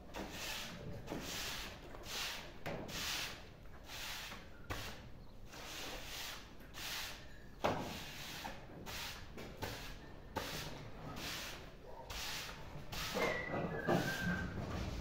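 Push broom sweeping a floor in quick repeated strokes, about one and a half a second. A dog gives a short high whine near the end.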